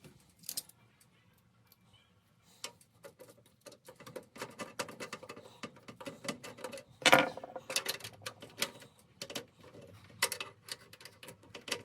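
Irregular light clicks, taps and scrapes of hands handling computer parts and cables inside a PC case, sparse at first and then denser, with a sharper knock about seven seconds in.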